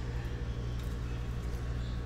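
Quiet room tone in a pause between speech: a steady low hum with faint background hiss and no distinct sounds.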